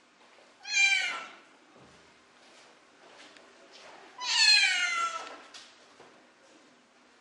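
A kitten meowing twice while its crusted, infected eyes are cleaned: a short meow about a second in, then a longer meow that falls in pitch about four seconds in.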